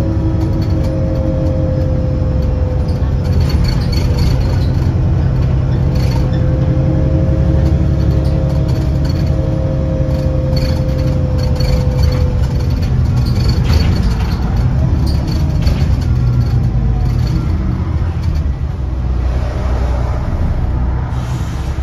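Diesel engine and drivetrain of a London bus heard from inside the saloon as it drives along: a steady low drone, with a higher whine that drifts gently up and down in pitch over the first twelve seconds, and light rattles.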